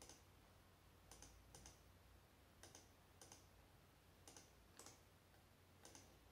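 Faint clicks of a computer mouse button, in pairs about half a second apart, a pair every second and a half or so.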